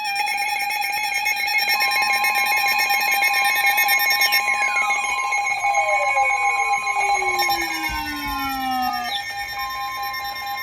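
Emergency Alert System attention signal: a loud steady electronic alarm tone, joined by a second tone after about two seconds and layered with several warbling tones. From about four seconds in, a set of whistles slides steadily down in pitch, ending around nine seconds in.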